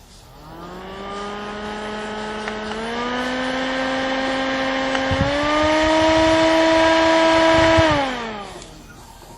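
Handheld portable fan's small motor and blades running with a whirring hum that steps up in pitch twice as it is switched through its speed settings. From about 8 s in, the whir winds down as it is switched off. There are low rumbling thumps at the highest speed.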